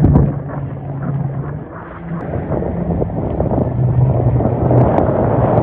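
Jet ski engine droning over a steady rush of water and wind. The engine note drops away about a second and a half in, then picks up again with a shifting pitch.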